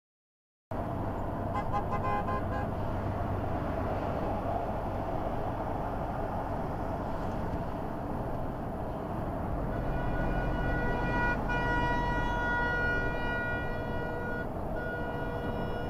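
Driving noise picked up by a dashcam inside a moving vehicle: a steady rumble of engine and tyres on the road. From about ten seconds in, a steady pitched tone holds for several seconds, breaks off briefly and then resumes.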